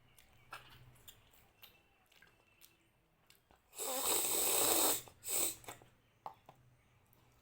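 Soft chewing clicks from a person eating, then about four seconds in a loud, noisy intake of air through the mouth or nose lasting about a second, followed by a shorter one.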